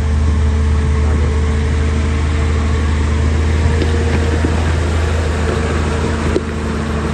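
A motor vehicle engine idling steadily: a constant low drone with a steady hum above it, dropping a little in level near the end.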